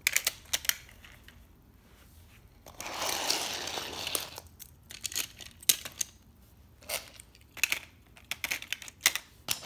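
Small die-cast toy cars handled on a wooden floor: scattered light clicks and clacks as they are picked up and set down, with a rustling scrape lasting about a second and a half around three seconds in.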